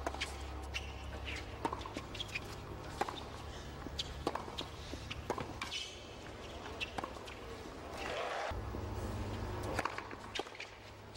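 Tennis rally on a hard court: repeated racket strikes on the ball and ball bounces, with shoe squeaks, then crowd noise swelling for a couple of seconds about eight seconds in as the point ends.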